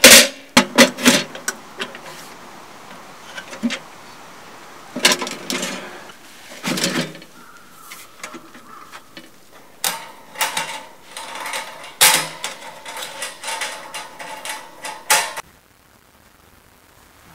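Clanks, knocks and rattles of the thin sheet-metal parts of a small folding wood stove being handled and set in place, some with a short metallic ring. The clatter stops about fifteen seconds in, leaving only a faint background.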